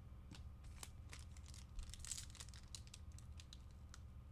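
Trading cards and a card-pack wrapper being handled: faint crinkling with many small clicks, and a short louder rustle about two seconds in.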